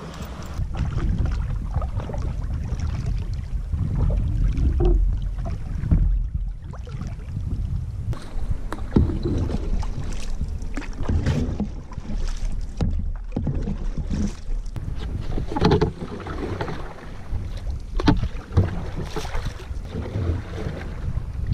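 Wind rumbling on the microphone as a canoe moves across choppy lake water, with irregular splashes of water against the hull.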